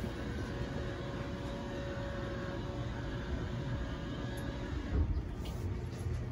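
Steady low rumble with a faint mechanical hum. A single thump comes about five seconds in, and the hiss thins after it.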